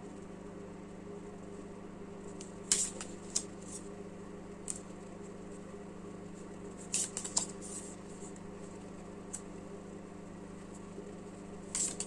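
A steady low hum with a handful of faint, scattered clicks and rustles.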